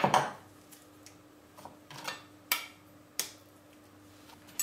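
Kitchen knife and avocado knocking and clicking on a wooden cutting board while the avocado is halved and its pit taken out. There is a loud knock at the start, then three or four short sharp clicks over a faint steady hum.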